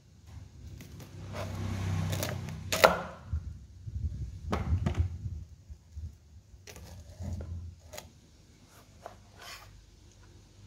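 Kitchen knife chopping a corn cob into pieces on a wooden cutting board: irregular knocks of the blade going through the cob and striking the board, the loudest about three seconds in.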